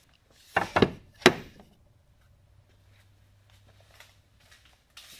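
A cast-iron Stanley Bailey No. 4 hand plane set down on a wooden shelf: a few knocks about half a second in, then one sharp clunk with a short ring.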